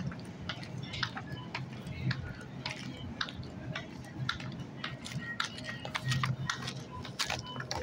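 Footsteps on a hard tile floor, sharp clicks about two a second at a walking pace, over a steady low hum.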